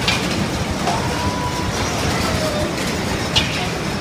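Bumper cars running on the rink floor: a steady rolling rumble, with two sharp knocks, one right at the start and one near the end.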